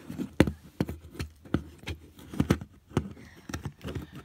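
Green plastic coin-vanishing magic box being slid and fumbled in one hand: a run of uneven, sharp plastic clicks and knocks, about three a second.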